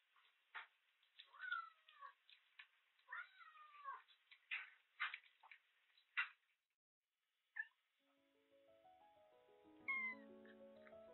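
Black kitten eating: quick wet clicks of chewing and smacking at the bowl, broken by a few small mews and eating murmurs. After a brief silence, soft background music starts in the second half, with one more short mew near the end.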